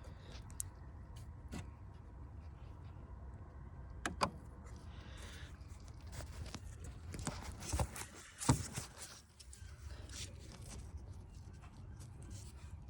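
Scattered clicks and knocks of hands and tools working on plastic clips and parts in a car's engine bay. The sharpest knocks come about four seconds and about eight seconds in, over a low steady rumble.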